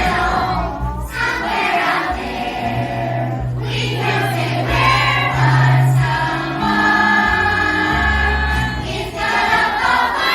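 A show tune: several voices singing together in long held notes over a backing track with a steady, stepping bass line.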